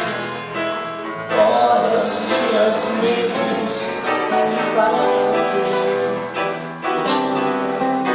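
Live duet: a woman and a man singing into microphones, accompanied by acoustic guitar and a second guitar, amplified through a small PA.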